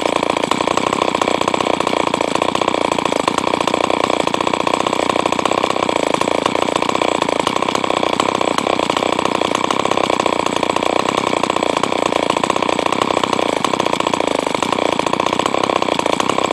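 Two-stroke chainsaw engine running steadily at an even speed, with no revving, after its oil pump has been replaced.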